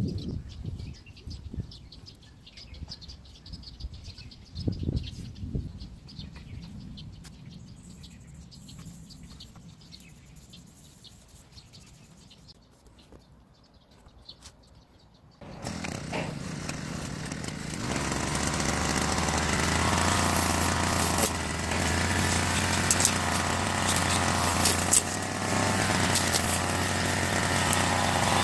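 Quiet outdoor stretch with faint bird chirps, then about halfway through a petrol brush cutter engine starts up and runs steadily, growing louder a couple of seconds later.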